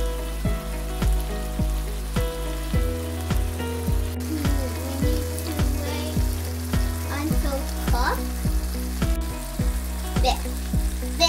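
Onion masala sizzling as it fries in a nonstick frying pan, under background music with a steady beat about twice a second.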